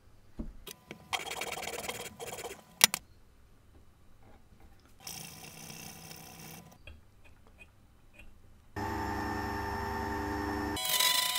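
A hacksaw cutting into a polycarbonate block held in a small vise, ending with a sharp click, then a file rasping across the block. About two seconds from the end a small benchtop circular saw's motor comes in with a steady whine and gets louder, dipping in pitch as the blade bites into the polycarbonate.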